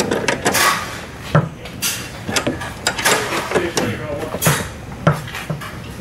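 A pair of 5/8-inch wrenches clinking and knocking against a bolt and its nylon-insert lock nut while the nut is tightened: a string of irregular, sharp metallic clicks.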